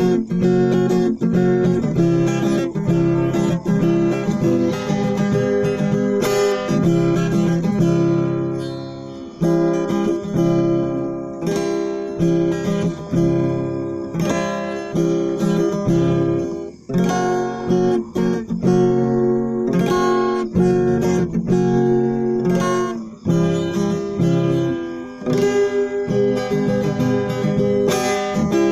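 Background music: strummed and plucked acoustic guitar playing a steady run of ringing chords.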